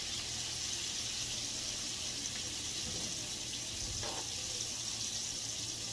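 Breaded shrimp frying in hot oil in a skillet: a steady sizzling hiss.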